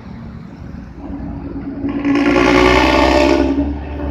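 Bus engine rumbling low, then a loud, steady air-horn blast starting about two seconds in and lasting about a second and a half.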